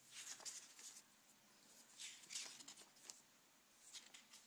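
Pages of a paper booklet being turned by hand: soft rustles, the longest in the first second and another about two seconds in, with a few fainter ones after.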